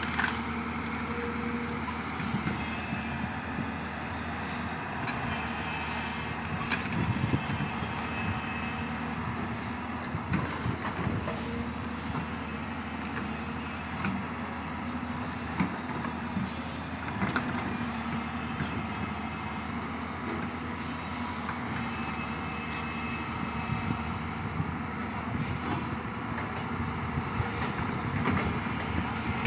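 Diesel engine of a large hydraulic crawler excavator running steadily under working load, with scattered knocks and clanks as it digs.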